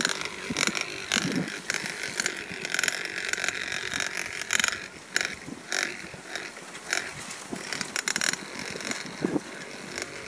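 Hand-cranked smoke blower being turned: a steady whirring hiss with irregular clicking from its gears, driving smoke into a rat burrow.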